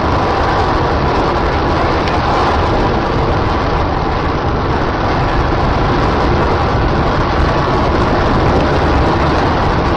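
Rocket engine firing on a test stand, heard from a distance as a loud, steady rushing noise that goes on without a break.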